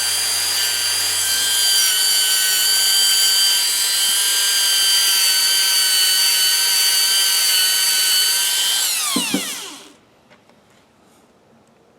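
Power tool running a blue plastic fiber abrasive wheel with a steady high whine while a steel ratchet part is cleaned on it. About nine seconds in it is switched off, and the whine falls in pitch as the wheel spins down, dying out about a second later.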